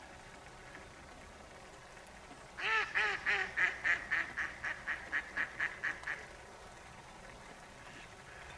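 A mallard hen quacking in a quick run of about a dozen quacks over some three and a half seconds. The run begins about two and a half seconds in and fades toward the end, the mallard's typical descending call.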